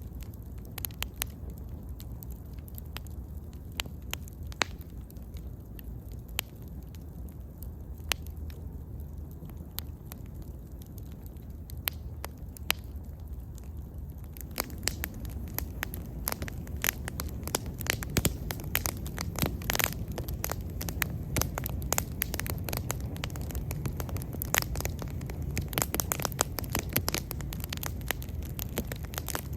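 Wood bonfire burning with a low steady rumble and irregular sharp crackles and pops, sparse at first and coming thicker and louder from about halfway through.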